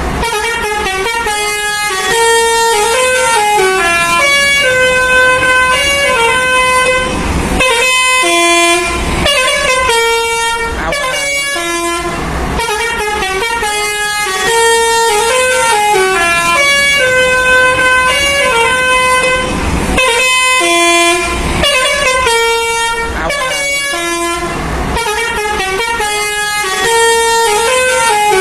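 Multi-tone 'telolet' bus horn playing a melody: a run of held, stepped notes rising and falling, in repeated phrases with short breaks between them.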